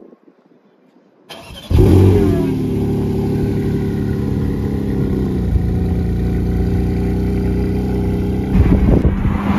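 Porsche 718 Cayman GT4 RS's 4.0-litre flat-six starting: a brief crank about a second in, then the engine catches with a loud flare and settles into a steady high idle. There is a short rise in the engine note near the end.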